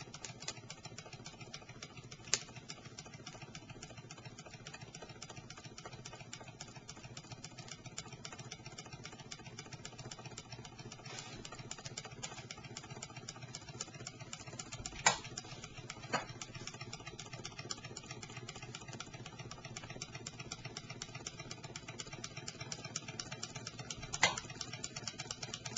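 Small model Stirling hot-air engine running steadily, its flywheel, piston and linkage making a fast, even ticking clatter. A few sharper clicks stand out along the way.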